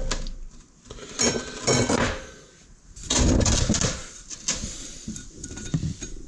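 Metal parts clanking and clinking as the disassembled hydraulic swing-cylinder pieces are handled and set down on a bench, in several irregular bursts.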